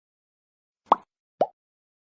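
Two quick plop sound effects about half a second apart, the second lower in pitch.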